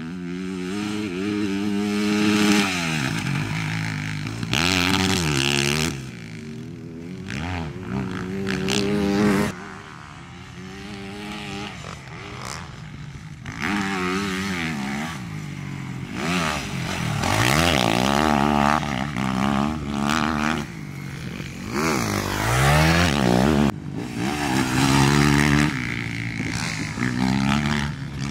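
Motocross dirt bike engine revving hard as it is ridden around a dirt track, its pitch climbing and dropping again and again as the rider accelerates, shifts and backs off for corners.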